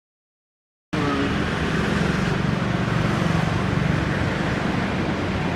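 A steady, loud background din with a low hum, cutting in abruptly about a second in after silence, with faint voices in it.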